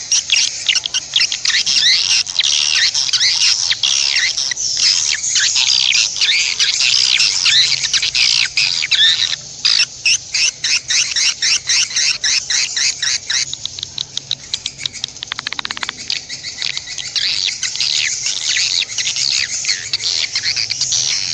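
Small songbird chirping and twittering in a rapid, continuous stream of high-pitched notes, a little sparser in the second half.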